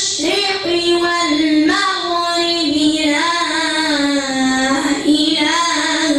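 A boy reciting the Quran in melodic tajweed chant. A single child's voice draws out long held notes that waver and glide between pitches, in a few unbroken phrases.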